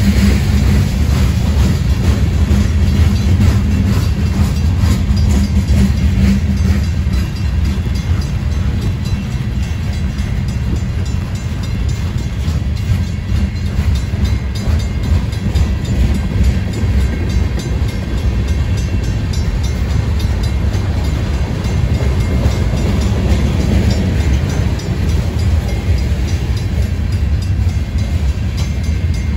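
Freight train of boxcars and tank cars rolling past: a loud, steady rumble of steel wheels on the rails, with a low hum that fades out about seven seconds in.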